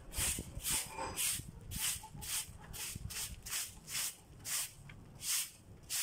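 Short straw hand broom sweeping a dry, dusty concrete rooftop: quick swishing strokes, about two a second.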